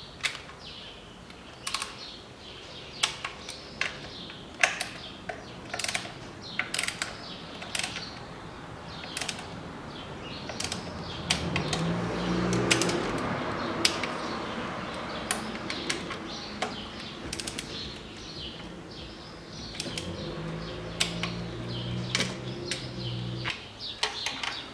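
Ratchet and torque wrench clicking in short, irregular bursts as the valve cover bolts are run down and tightened to 10 N·m, with sharp metal tool clicks. A low steady hum comes in twice, about halfway through and again near the end.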